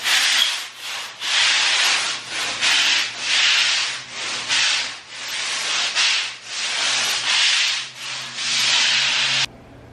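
Stiff-bristled scrub brush scrubbing a wet, soapy concrete floor in rhythmic back-and-forth strokes, about one and a half strokes a second. It stops abruptly near the end.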